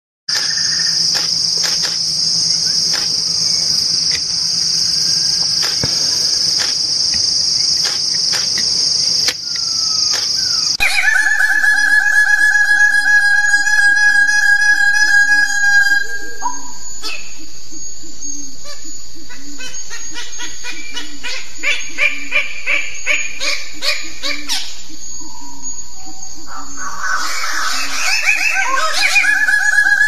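Tropical forest sound: a steady high insect buzz with scattered sharp clicks, changing abruptly about eleven seconds in to bird calls. These include a run of rapid repeated notes and a burst of calls near the end, over a steady high whistling tone.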